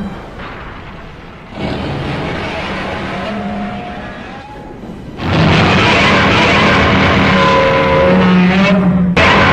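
The 1954 Godzilla roar sound effect, made from a leather glove drawn along a double bass string: long, rasping calls on a held pitch. A softer call begins about a second and a half in. A loud call from about five seconds in bends in pitch and cuts off sharply just before the end.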